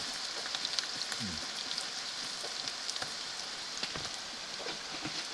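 Bamboo worms frying in hot oil in a pan: a steady sizzle with many small scattered pops and crackles.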